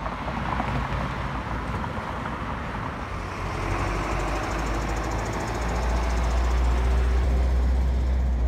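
Outdoor street noise, likely traffic: a steady hiss with a low rumble that grows louder about halfway through.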